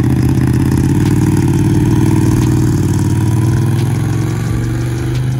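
Ducati Panigale 1199's L-twin engine running at a steady, loud note as the motorcycle is ridden along.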